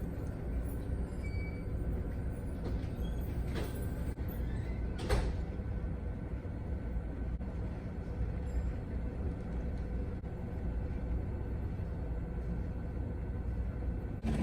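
Steady low rumbling noise of a thunderstorm, with two brief sharp crackles a few seconds in.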